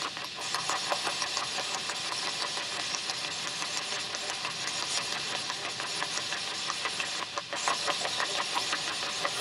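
Spirit box sweeping the radio band: a steady hiss of radio static broken by many quick clicks as it jumps from channel to channel.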